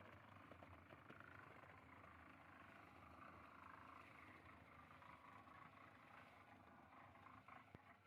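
Near silence: a faint steady hum and hiss, with one sharp click near the end.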